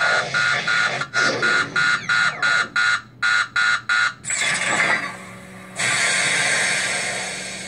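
Proton pack sound effects from a small loudspeaker: warning beeps that pulse faster and faster, then a hissing vent sound about four seconds in, a second hiss that fades away near the end.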